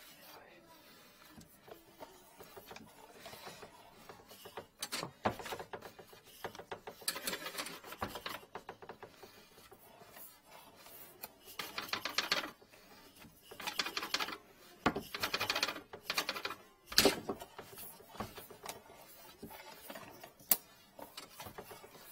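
Drain inspection camera's push cable being fed off its reel into a 40 mm sink drain pipe, in spurts: bursts of fast clicking and rattling, with a few sharp single clicks in between.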